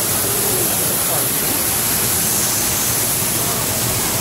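Steady rush of falling water from an artificial waterfall, heard up close and drowning out other sound.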